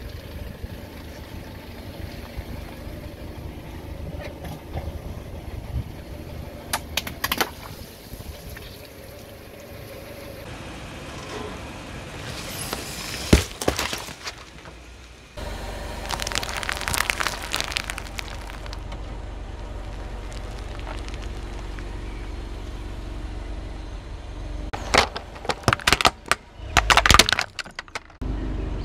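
A car's tyre rolling slowly over things on pavement and crushing them, including water balloons, a watermelon and small plastic toys, over a steady low rumble from the car. Sharp cracks and splats come in scattered bursts, with one loud crack about halfway through and a run of cracks near the end.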